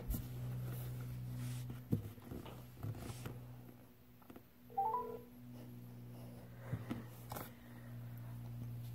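Smartphone placing a call on speaker: a faint low hum and a few light taps, with a brief electronic tone and a short rising chirp about five seconds in as the call connects.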